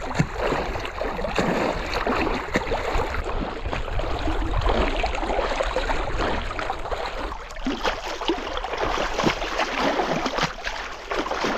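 Seawater sloshing and splashing close to the microphone, a continuous wash broken by many small irregular splashes.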